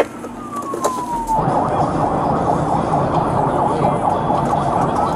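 Police car siren: a sharp click, then one tone sliding downward for about a second and a half. It then switches to a fast warbling tone that holds steady over road and engine noise.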